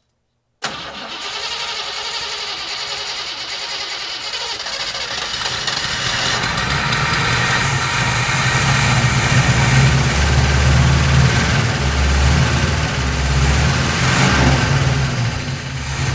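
V8 engine of a 1957 GMC 100 pickup, long left sitting, starting on fuel poured into the carburetor bowl. It comes in suddenly under a second in and grows louder, settling into a steady low running note from about six seconds in. The owner judges it worn out: "she is definitely beat".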